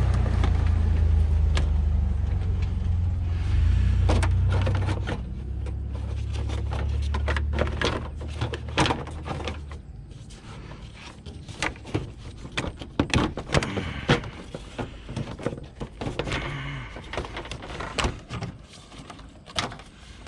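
A low, steady engine rumble from a motor vehicle that fades away about halfway through. It is followed by a string of irregular sharp clicks and knocks as car body parts are handled and fitted.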